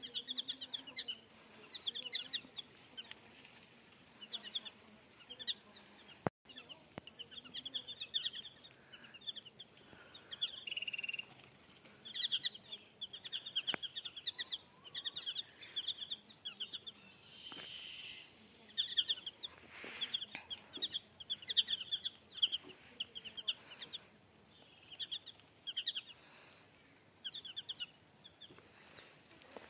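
A flock of small birds chirping and peeping: many short, high calls overlapping in bursts.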